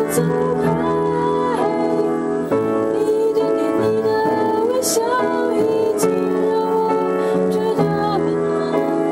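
Keyboard played in slow, sustained chords, with a voice singing a gliding melody over it.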